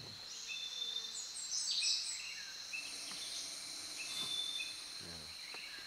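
Tropical forest ambience: a steady high-pitched insect drone with scattered short bird chirps and whistles, a flurry of them about one and a half to two seconds in.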